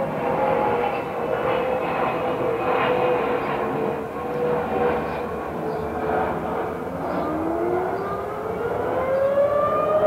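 Jet airliner passing overhead, a steady rushing drone. About seven seconds in, an outdoor civil-defense warning siren starts winding up for its test, its tone rising steadily and levelling off near the end.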